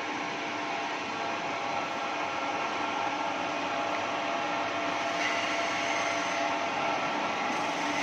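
CNC horizontal boring machine running, a steady mechanical hum and whine with several steady tones. It gets a little louder, and a higher whine joins about five seconds in.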